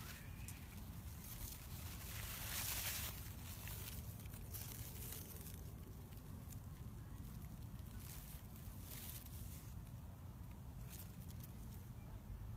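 Quiet outdoor ambience with a steady low rumble and light rustling and handling noise from a handheld phone moving among garden plants, with a louder brushing rustle about two and a half seconds in.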